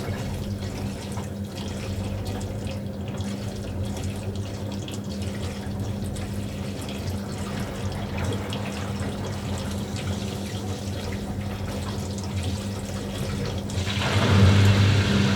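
Washing machine running mid-cycle: a steady motor hum with water moving inside the drum. Near the end it grows louder and fuller as the machine steps up its action.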